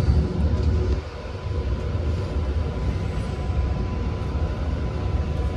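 Long Island Rail Road commuter train running at speed, heard from inside the passenger car: a steady low rumble of wheels on rail with a faint steady high whine. The rumble eases a little about a second in.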